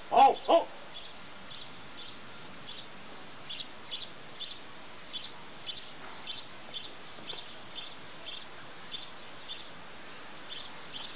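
A loud two-syllable shout right at the start, then a small bird chirping over and over, about two short high chirps a second.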